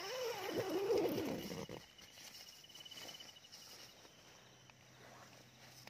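Crickets trilling in a steady, high pulsing tone that stops about four seconds in. Over it for the first two seconds is a louder sound whose pitch wavers up and down.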